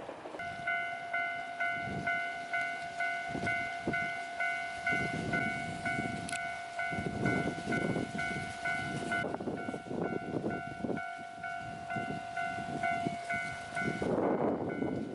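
Japanese railway level-crossing alarm ringing its rapid, even electronic "kan-kan" bell. It starts about half a second in and stops near the end. Midway a train passes with a rhythmic clatter of wheels over the rails.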